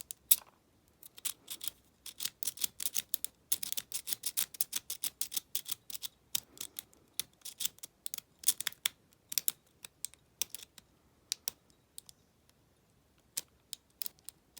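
Metal lock pick scraping and clicking against the pins and warding inside the keyway of an Abus 74/40 aluminium lockout padlock: quick runs of sharp clicks, densest in the first two thirds and thinning out near the end.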